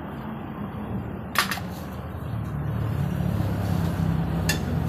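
A motor vehicle engine running steadily, growing louder about two seconds in, with two sharp clicks, one near the start and one near the end.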